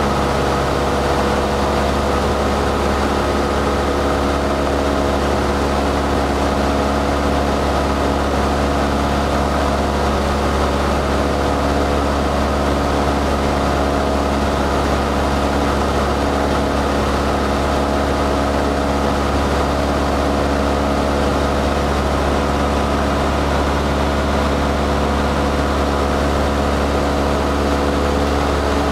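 Cessna 152's four-cylinder Lycoming engine and propeller running steadily at a constant power setting on approach, heard from inside the cabin as a loud, even drone.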